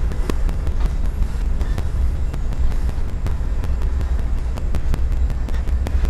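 Steady low rumble of the fishing boat's engine and hull heard from inside the wheelhouse in rough seas, with scattered sharp ticks and rattles on top.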